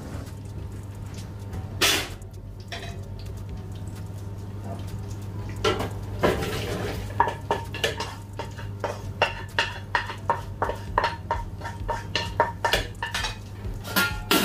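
Steel frying pan and metal spatula clanking as stir-fried chicken with cashew nuts is tossed and then scraped out of the pan into a stainless steam-table tray. The second half is a quick run of metal clinks and scrapes, about two or three a second, over a steady low hum.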